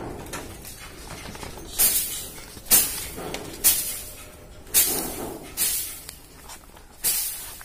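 Pages of a paper school notebook being turned one after another, each turn a short crisp rustle, about once a second, six times.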